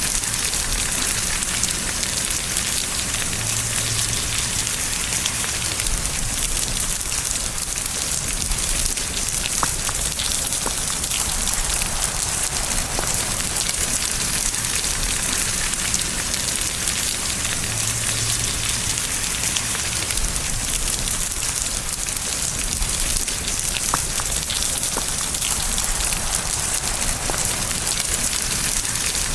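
Steady, constant rain falling on a surface, an even hiss with the odd single drop ticking out.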